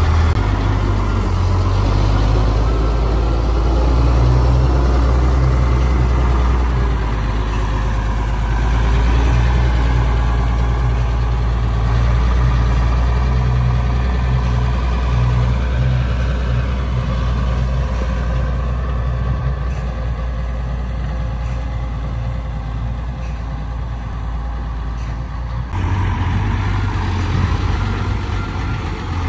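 Diesel engine of a Doosan wheeled excavator running with a steady low drone that rises and falls as the machine works. The sound changes abruptly near the end.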